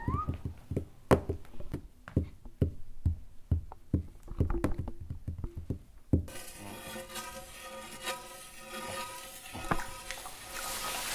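A run of sharp knocks or taps, about two to three a second at an uneven pace. About six seconds in this gives way to a steady hiss carrying several held tones, and the hiss grows louder near the end.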